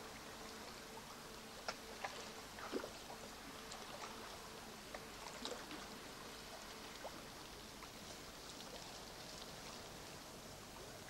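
Faint trickling and lapping of water, with scattered small clicks and ticks, most of them in the first three seconds.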